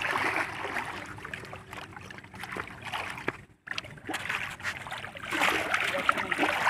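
Water splashing and trickling, with scattered small knocks; the sound drops out briefly about halfway through.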